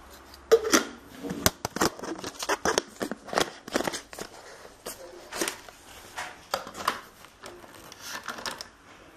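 Plastic parts of a portable blender being handled: irregular clicks, knocks and clatters as the cup, lids and motor base are picked up and set down, and the cup is fitted onto the base.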